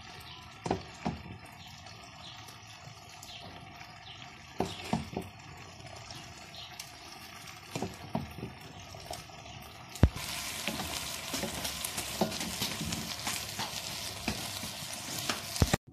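Meat and green beans in tomato sauce sizzling in a wok, with clinks and scrapes of a metal slotted spoon and a wooden spoon as the boiled beans are added and stirred in. About ten seconds in the sizzling becomes louder and fuller.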